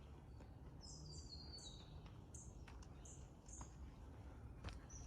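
Faint high-pitched calls of small songbirds: a short falling run of notes about a second in, then a few scattered single chirps, with a few soft clicks.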